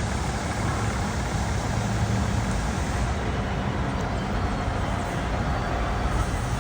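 Volvo FH truck's inline-six diesel running steadily through an aftermarket exhaust, with a deep rumble.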